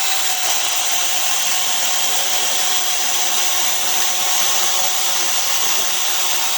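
Battery-powered electric chainsaw running at a steady pitch as it cuts through a dry, rotten log. The saw's own weight is carrying it through the wood, with no forcing.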